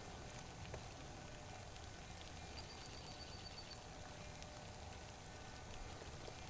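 Faint, steady outdoor background noise with a low rumble, and a short, high-pitched trill of rapid pulses a little over two and a half seconds in.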